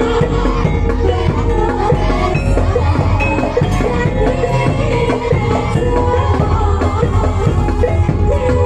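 Loud live Javanese barongan accompaniment: a gamelan-style ensemble with hand drums and pitched percussion, under a sustained, slightly wavering melody line.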